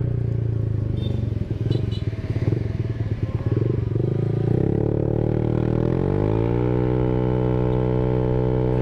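Honda ADV 150 scooter's single-cylinder engine running through an R9 Alpha Series aftermarket exhaust with the dB killer removed, on the move. It runs at low revs, then the revs climb about five seconds in and hold steady at a higher pitch.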